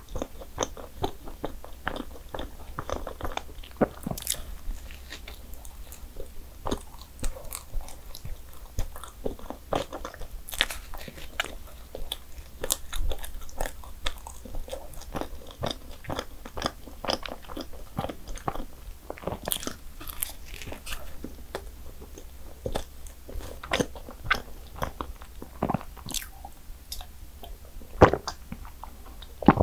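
Eating sounds: biting and chewing, with many short irregular clicks and crunches throughout and one sharper click near the end.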